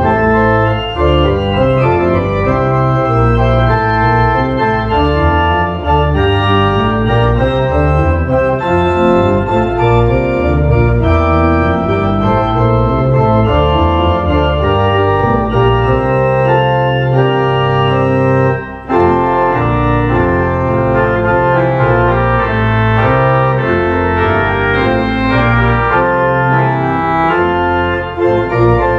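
Church organ playing sustained full chords over a changing bass line, with a brief break between phrases about two-thirds of the way through.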